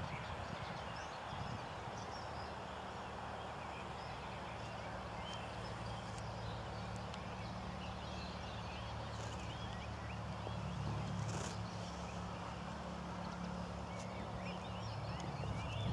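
Outdoor ambience: faint bird chirps over a steady background noise and a low hum.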